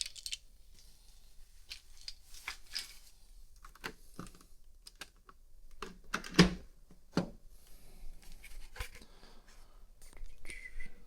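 Scattered clicks, scrapes and knocks from objects being handled by hand, with the loudest knock about six seconds in.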